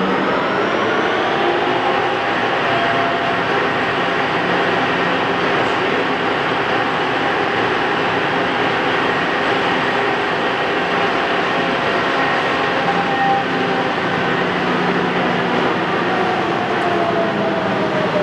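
Axelson 39" x 108" heavy-duty engine lathe running at its top spindle speed of 555 RPM, a steady mechanical whir and rumble from its 25 HP main drive and geared headstock. A whine climbs in pitch over the first couple of seconds and starts to drop near the end.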